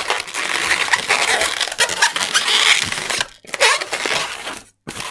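Latex 260Q modelling balloon squeaking and rubbing as it is twisted and handled. The dense squeaking stops about three seconds in, leaving a few short squeaks.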